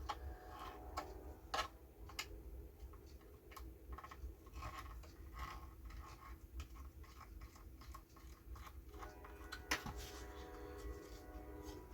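Faint irregular clicks and scrapes of small hand work on a cuckoo clock's wooden case as a bellows is worked loose, with one sharper click near the end.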